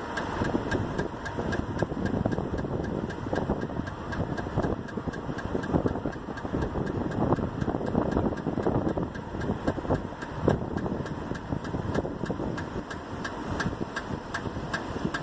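Rapid, regular ticking or scraping from the rear driver's-side wheel and brake of a 1999 Toyota Avalon, about four a second, over the car's running noise; the owner takes it for brake noise.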